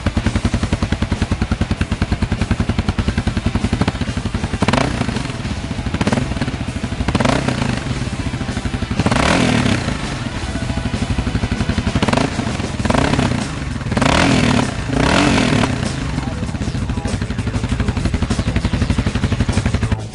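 Motorcycle engine running through a Krieger slip-on exhaust, idling with fast, even pulses. From about four seconds in it is revved in a series of short throttle blips, about eight of them. Near the end it settles back to idle.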